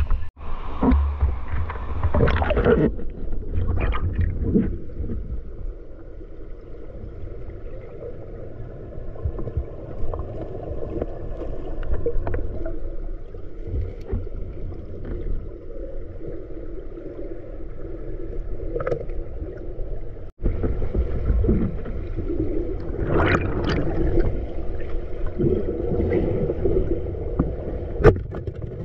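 Muffled underwater sound picked up by a submerged camera: a steady low rumble and wash of moving water, with scattered clicks and knocks.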